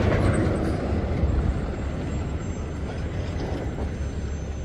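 Heavy truck driving past, its engine and road noise loudest at first and easing off as it moves away.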